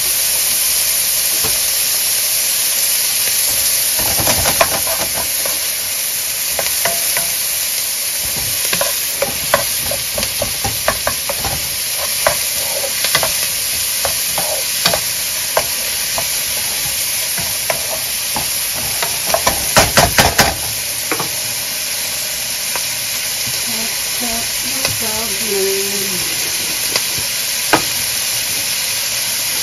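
Diced ham and onion sizzling in a hot pan, with a utensil clicking and scraping against the pan as the food is stirred. The stirring taps come in irregular runs, busiest about two-thirds of the way through, while the sizzle runs on steadily underneath.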